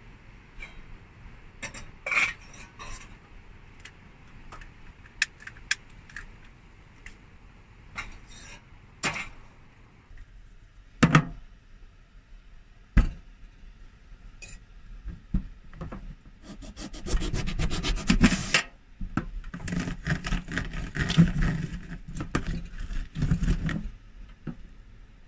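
Lemon halves twisted and pressed on a plastic hand citrus juicer, a grinding rub in two long bouts in the second half. Before that, scattered light clicks and knocks of kitchen handling, with one sharp knock about halfway.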